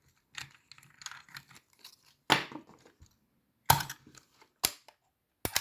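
Sharp clicks and knocks from hands handling a Canon Canonet 28 film camera, four of them spread over a few seconds, with light rustling and scraping in between.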